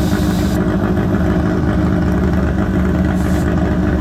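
A car engine idling steadily. A hiss stops about half a second in, and a brief hiss comes again a little after three seconds.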